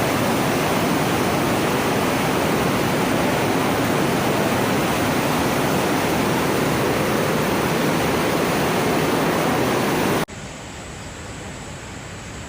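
Loud, steady rush of heavy rain and running floodwater. It cuts off abruptly about ten seconds in to a much quieter hiss.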